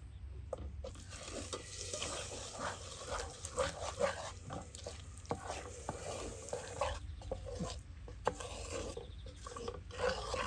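A spoon stirs hazelnuts through hot, bubbling caramel in a pan for hazelnut halva, scraping and clicking against the pan over a light sizzle. It starts about a second in, with a brief lull around seven seconds.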